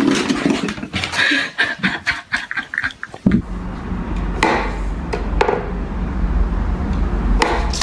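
A quick run of knocks and clatter, then a steady low hum with a few separate knocks over it.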